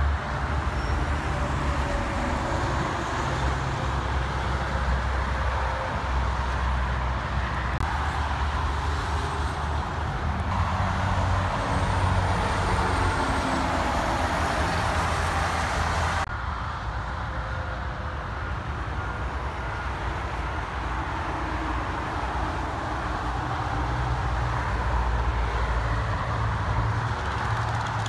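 Steady highway traffic noise: tyres and engines of cars and tractor-trailers passing, with a strong low rumble. The sound shifts abruptly about sixteen seconds in.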